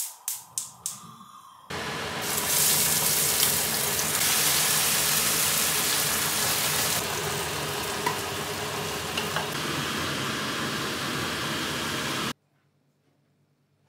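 A gas stove's igniter clicks about five times in quick succession. Then egg white poured into a hot pan of minced pork sizzles loudly and steadily for about ten seconds, cutting off suddenly near the end.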